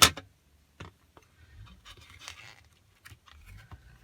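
A sharp plastic click as a CD jewel case snaps open, followed by quieter clicks and soft rustling as the case and its paper booklet are handled.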